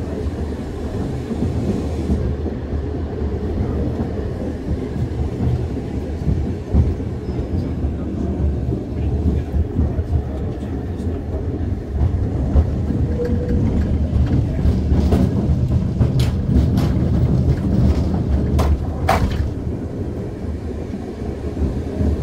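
Vintage tram running on rails: a steady low rumble of wheels on track, with irregular knocks and clatter and a few sharp clicks and squeaks in the second half.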